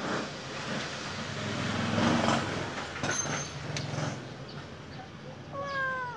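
Steady low rumble of vehicles going by, swelling to its loudest about two seconds in, with a couple of sharp clicks. Near the end a kitten gives one short meow that falls in pitch.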